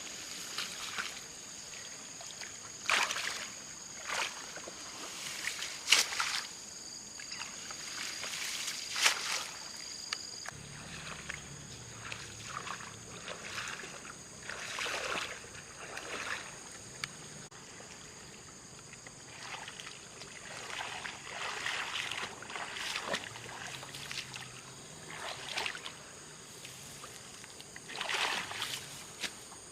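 Irregular splashing and sloshing of water, a short swish every few seconds, over a steady high-pitched background hum that stops about ten seconds in.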